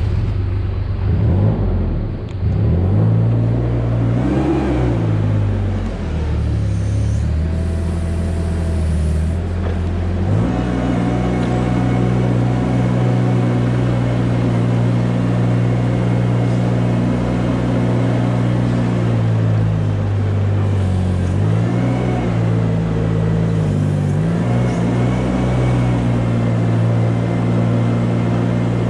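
Engine of a small ride-on barn machine running as it drives along the barn alley. Its speed changes several times: it rises and falls in the first few seconds, steps up about ten seconds in, then dips and comes back up again about two-thirds of the way through before holding steady.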